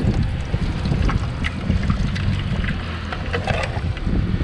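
Wind buffeting the microphone, a steady low rumble, with a few light clinks of a metal fork and pot against aluminium mess tins.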